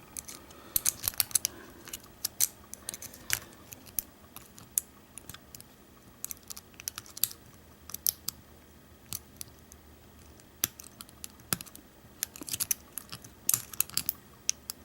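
Lock pick and tension wrench working the pins of an American Lock 1100 padlock: irregular small metallic clicks and ticks as the pins are single-pin picked, with a denser cluster of clicks near the end.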